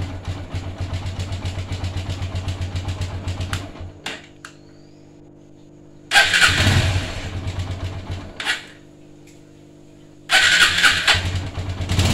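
Electric self-starter of a TVS Apache RTR's single-cylinder four-stroke engine, freshly serviced, cranking the engine in three separate presses. Each press opens with a loud whir and runs on as rhythmic chugging for two to three seconds before stopping. The first press is already under way, the second comes about six seconds in, and the third near the end.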